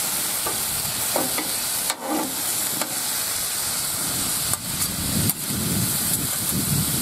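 Ground beef and onions sizzling on a steel Blackstone flat-top griddle, with a metal spatula scraping across the plate and a few sharp clicks as it pushes and chops the meat.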